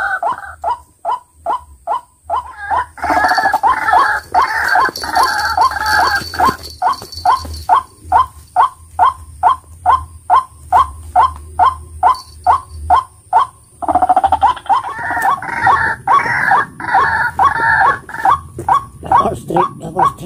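White-breasted waterhen (ruak-ruak) calling: a fast, even series of short, loud 'kru-ak' notes, about three a second, swelling twice into fuller, harsher calling, a few seconds in and again past the middle.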